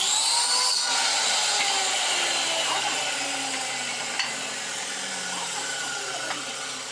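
Chainsaw cutting wood. Its engine runs at high revs, the pitch rising right at the start and then slowly sinking over the next few seconds.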